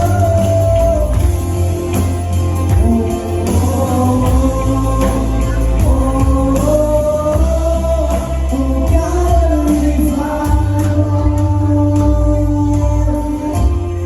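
Live church worship band playing a contemporary worship song, with held sung notes over steady bass and drums.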